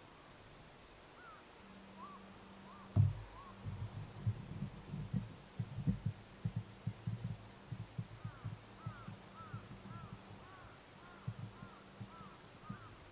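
A run of irregular low thumps and knocks, the first and loudest about three seconds in, dying away after about twelve seconds, over a faint steady low hum. Faint, short, rising-and-falling bird calls come in two small clusters, early on and again near the end.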